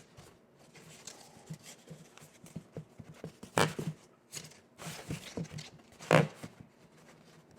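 Quiet handling of cardstock paper pieces: soft scattered taps and rustles, with two louder brief noises about three and a half and six seconds in.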